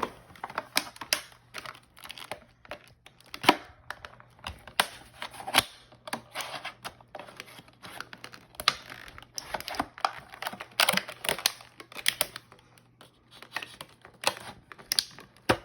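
A dull pocket knife cutting and scraping at the drill's packaging, with irregular sharp clicks, short scrapes and crinkles.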